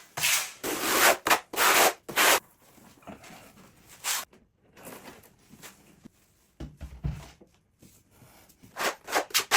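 Rubbing and scraping strokes on a hard surface: about four strong strokes in the first two and a half seconds, then fainter scrapes, and several more strokes near the end.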